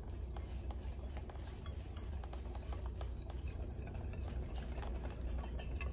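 Wire balloon whisk stirring dry flour, salt and baking soda in a glass bowl: a soft, steady swishing through the flour with many small, quick ticks as the tines touch the glass.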